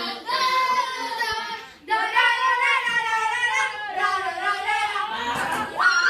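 Children's voices singing unaccompanied: long held notes in a few phrases with short breaks between them, ending in a high rising cry.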